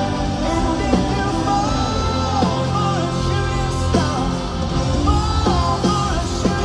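Live rock band playing, with the lead singer holding long notes that slide between pitches. Heard through a phone's microphone from the stands of an arena.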